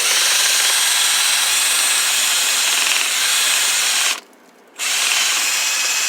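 Power drill spinning a rotary brush on extension rods inside a packed dryer vent line, running hard. It starts abruptly, stops for about half a second a little after four seconds in, then runs again.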